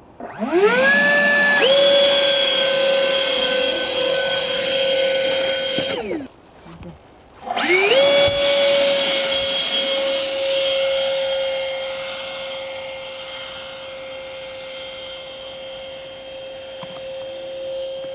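Electric ducted-fan (impeller) motor of a foam RC plane spooling up with a rising whine to a steady high whine during a takeoff attempt. About six seconds in it cuts out and winds down, then spools up again a second and a half later and runs steadily, growing quieter over the second half.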